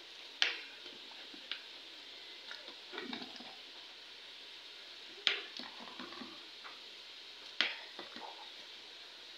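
A metal ladle stirring a thick chicken curry in a metal pot. The ladle clinks sharply against the pot three times (about half a second in, about five seconds in, and near the end), with wet stirring and squelching in between over a steady hiss.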